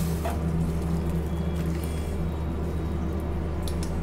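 Hot water and boiled bathua leaves poured from a steel pot through a plastic mesh strainer, splashing into a steel bowl, over a steady low background hum.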